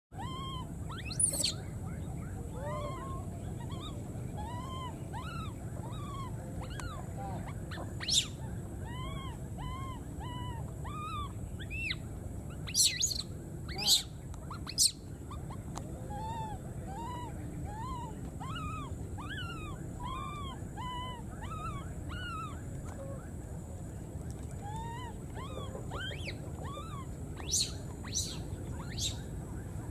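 Baby macaques giving repeated short, rising-and-falling coo calls, a steady string of plaintive cries with a few louder, shriller squeals mixed in.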